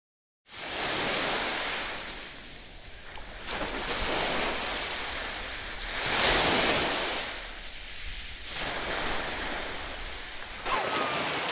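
Sea waves washing onto a beach, starting about half a second in: a steady surf that swells and fades every few seconds.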